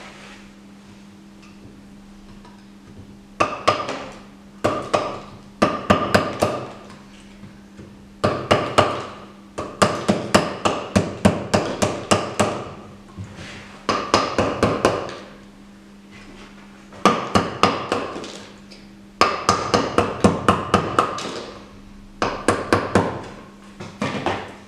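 Wooden mallet striking a hand chisel to chip a plaster waste mould off a sculpture, in quick runs of sharp knocks, about four a second, with short pauses between runs.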